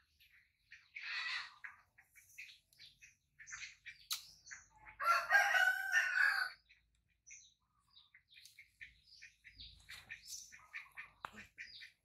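A rooster crowing once, a long call of about a second and a half a little before the middle, the loudest sound here. Short high chirps and squeaks come and go around it.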